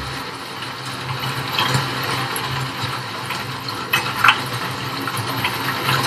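Steady rain falling on a wet city street, with car engines running low underneath and a few louder drops or splashes.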